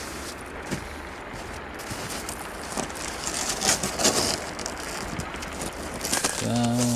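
Footsteps crunching in snow, then a large cardboard box being handled and stood upright, with irregular rustles, scrapes and knocks that are loudest about four seconds in, over a steady outdoor hiss. A tune starts near the end.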